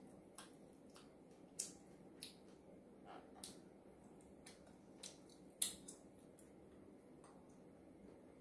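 Close-up eating sounds: faint, irregular crisp clicks of chewing crunchy winged beans and other mouth noises, with a sharper click a little past halfway.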